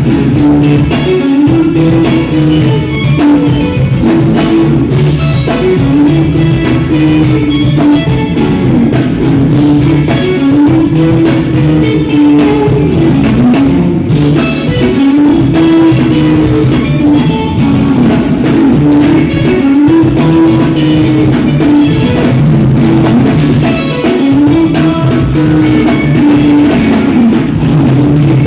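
A live instrumental math rock band playing: clean electric guitars pick a repeating melodic figure over bass and a drum kit.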